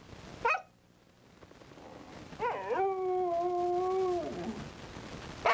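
A dog howling: a short sharp yip about half a second in, then one long howl that wavers at the start, holds a steady pitch for a second and a half and trails off, and another yip at the end.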